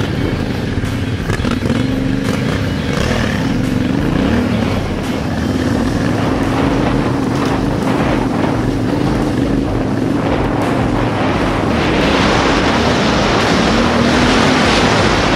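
Yamaha Ténéré 700's parallel-twin engine running under way on a gravel track, its pitch rising and falling with the throttle. Wind and gravel noise grow louder about twelve seconds in.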